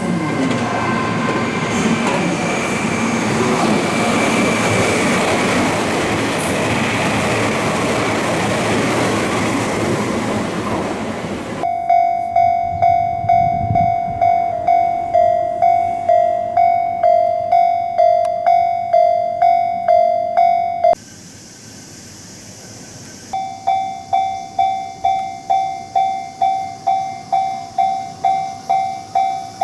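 A train running past with wheel and track noise. About twelve seconds in, a Japanese level-crossing alarm starts: an electronic bell striking about twice a second and alternating between two tones. It cuts off suddenly, and after a short pause a second crossing alarm strikes at the same pace on a single, slightly higher tone.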